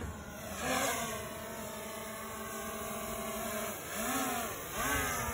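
Quadcopter drone hovering close by, a steady propeller whine that swells and bends up and down in pitch about three times as its motors change speed.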